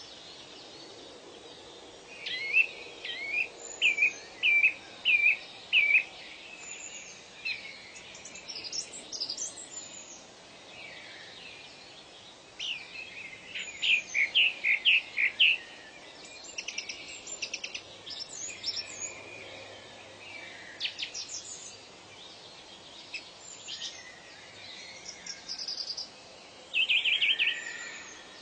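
Wild birds singing over a faint steady hiss: repeated short whistled notes, with runs of quick notes about two seconds in and again around thirteen seconds, and a fast trill near the end.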